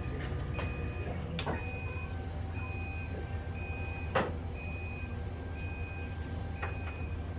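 Hospital bedside equipment alarm beeping: a high, even beep about half a second long, repeating about once a second over a steady low hum. A sharp click about four seconds in.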